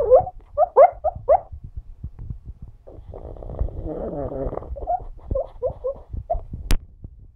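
Pug dreaming in his sleep: a quick run of short high-pitched whimpers, a longer rough snoring breath in the middle, then more short whimpers. There is one sharp click near the end.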